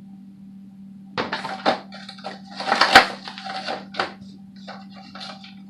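Plastic and cardboard toy packaging crackling and rustling in several irregular bursts as a boxed doll is pulled open, then a few lighter ticks.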